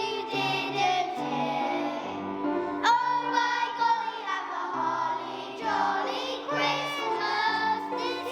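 Music: a song with high singing voices over instrumental accompaniment.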